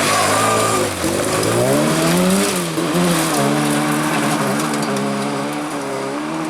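Rally car engine revving hard: the pitch climbs steeply, drops briefly at a gear change, then holds higher and slowly falls as the sound fades a little toward the end.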